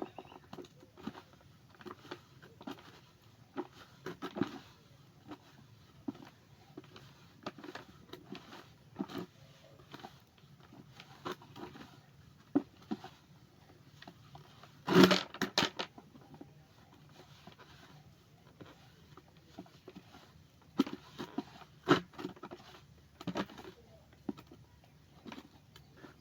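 Hands working grated cassava in water: scattered short squelches, taps and handling noises, with one louder knock about fifteen seconds in.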